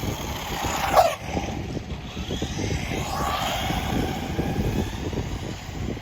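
Brushless electric motor of a 1/16-scale RC jeep whining under throttle. Its pitch drops sharply about a second in, then rises and falls again around three to four seconds in, over a low rumble.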